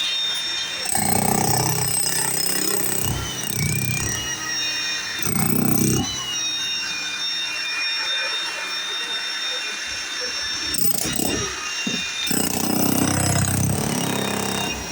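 Jackhammer hammering in several heavy bursts a few seconds long, over a steady high-pitched whine.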